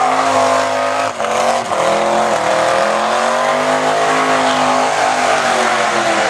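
Holden VN Commodore burnout car's naturally aspirated engine held at high revs while its tyres spin and screech. About a second in the revs dip twice in quick succession, then hold steady again.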